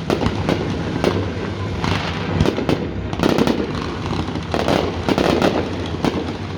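Aerial fireworks going off in rapid succession: a run of sharp bangs with bursts of crackling among them.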